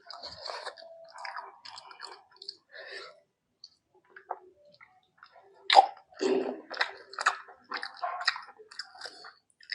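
Close-miked mouth sounds of a person eating rice with mutton curry: wet chewing and lip-smacking in irregular clicks, a brief near-silent pause in the middle, then a sharp smack about six seconds in followed by a quick run of smacks.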